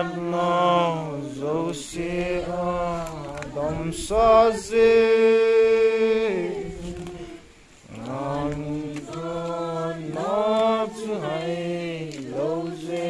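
Unaccompanied voices singing a slow hymn together, with one long note held about five seconds in and a short break before the next phrase starts about eight seconds in.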